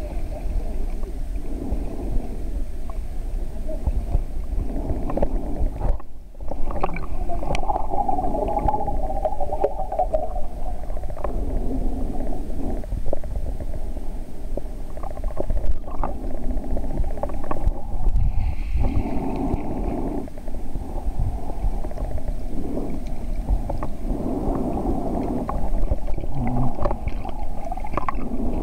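Muffled underwater sound of water moving around a submerged camera: a continuous low rumbling and gurgling, with a few faint clicks and a brief drop in level about six seconds in.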